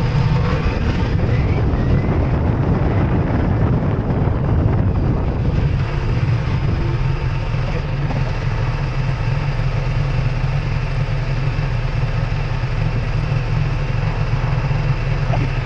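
Ducati Multistrada V4S motorcycle engine running steadily with a low drone, mixed with an even rush of wind and road noise.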